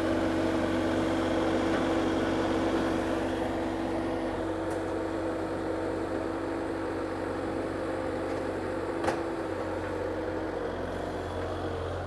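Skid-steer loader's engine running steadily as it pushes a stack of lumber into a kiln chamber; the engine note shifts slightly about four seconds in.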